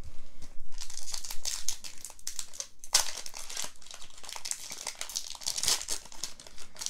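Foil booster pack wrapper of a Pokémon trading card game pack crinkling as it is handled and torn open, with one sharp crackle about three seconds in.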